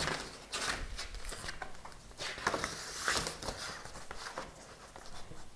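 Paper rustling and light handling noises as the pages of a printed pattern booklet are turned, in short irregular rustles.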